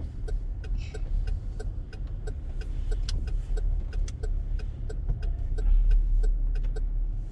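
Car running, heard from inside the cabin as a steady low engine and road rumble that swells near the end, with a steady ticking about three times a second.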